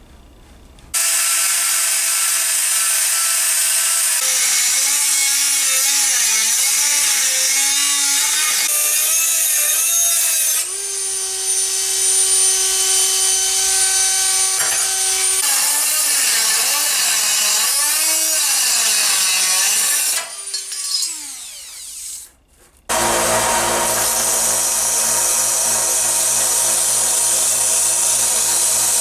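Electric power tool shaping small metal bracket pieces, its pitch dipping and rising as it bites into the metal. It runs in several stretches that cut off abruptly, and winds down with a falling pitch near the twenty-second mark before starting again.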